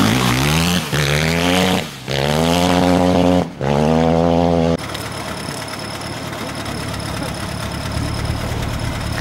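Motocross bike accelerating hard, its engine rising in pitch through three quick upshifts. About five seconds in it drops suddenly to a quieter, steady engine sound from farther off.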